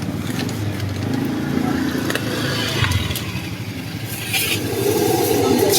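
A motor vehicle engine running close by with street noise. A louder hissing comes in about four seconds in.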